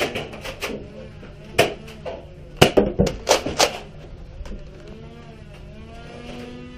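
A run of sharp clacks and thuds from a Nerf battle, foam-dart blasters firing and darts striking, bunched into several quick hits around the middle.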